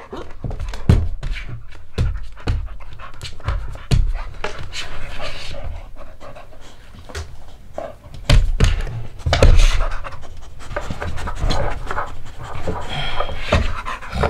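A dog panting close to the microphone, with irregular snuffles and sharp knocks as it moves about. The loudest stretch comes about eight to ten seconds in.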